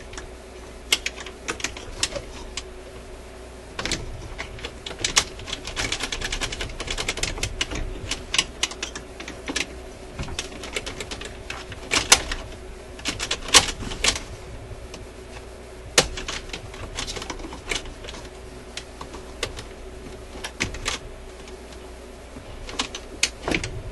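Irregular light metal clicks and ticks as the linkage of a record changer mechanism is handled: its retaining clip is worked off and the sticking On/Off/Reject control is moved against the mounting plate.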